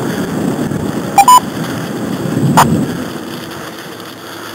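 Bicycle rolling over a leaf-covered dirt trail: a rough rumble of tyres and wind on the microphone that eases near the end. About a second in, a ham radio gives a short two-note beep, low then high, and a sharp click follows a little later.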